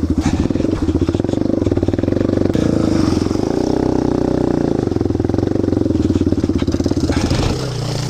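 Yamaha TT-R230's single-cylinder four-stroke engine running under way on a trail ride, its note rising and falling a little with the throttle, then easing off near the end.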